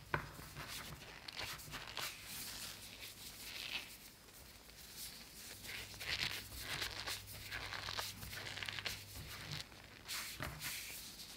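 Hands pulling and folding dragon's beard candy, a rope of hardened sugar syrup drawn into fine strands, in a tray of cornstarch: soft dry rustling that comes and goes with each stretch and fold. There is a soft knock about ten and a half seconds in.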